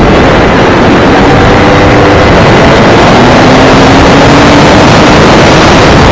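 Go-kart engine running hard, heard from on board, its tone climbing slowly in pitch as the kart accelerates out of a bend and along the straight, under a heavy, loud rush of noise.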